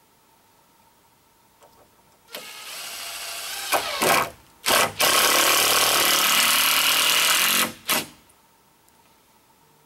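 Power drill running in stop-start bursts: it speeds up about two and a half seconds in, gives two short bursts, then one long steady run of nearly three seconds and a last short burst.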